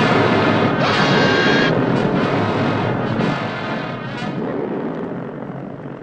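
Cartoon soundtrack: music mixed with loud crashing sound effects and a briefly held high tone about a second in, fading out gradually toward the end.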